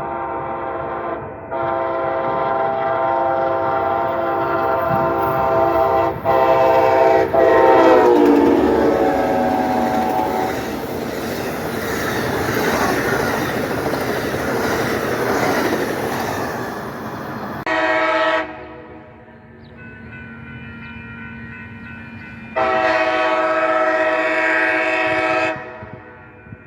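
Locomotive air horn sounding a chord in a string of blasts, the last one dropping in pitch as the train passes, followed by the rumble and clatter of the passing train. After an abrupt cut, another train horn gives a short blast and then a longer one near the end.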